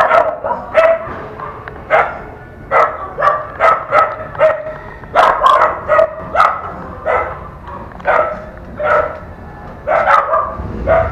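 A dog barking over and over, about two short barks a second with no let-up.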